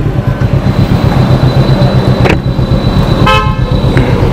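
Kawasaki Ninja 300 motorcycle running on the road with a steady low rumble of engine and road noise, and a short vehicle horn honk about three seconds in.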